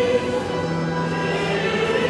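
Slow sacred choral music with long held notes; a lower note comes in about half a second in.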